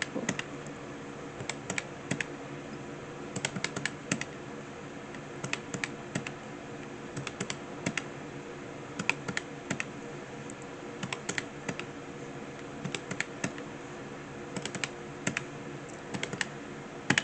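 Calculator buttons being pressed in quick irregular runs of clicks as figures are keyed in and totalled, over a faint steady hum.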